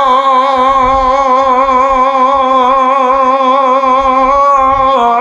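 A man singing a Bengali devotional durood unaccompanied, holding one long note with a steady vibrato that breaks off near the end.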